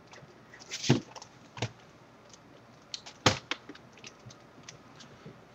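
Scattered plastic clicks and knocks of a Samsung laptop being handled: the battery is pushed into its bay, then the machine is turned over onto the desk and its lid opened. The loudest knock is about three seconds in.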